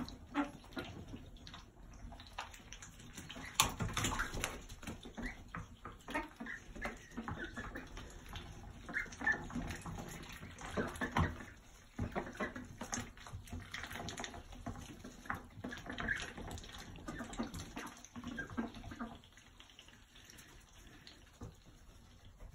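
Ducks giving short, soft quacks and murmurs, with scratchy rustling and pecking in wood shavings.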